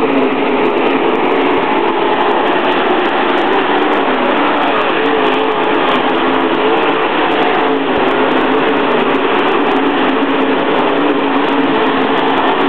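Dirt late model race cars' V8 engines running hard around a dirt oval, a loud steady drone whose pitch wavers slightly as the cars go by.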